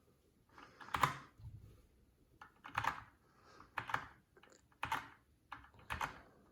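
Keychron K4 mechanical keyboard, one key pressed about once a second: single key clicks, each press stepping the backlight to its next lighting mode.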